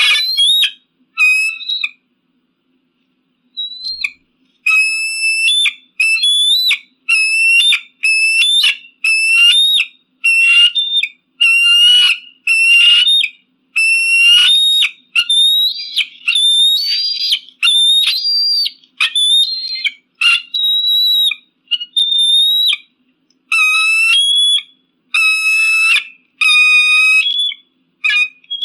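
An eagle calling: a long series of short, high, piercing notes, a little more than one a second, after a brief pause near the start.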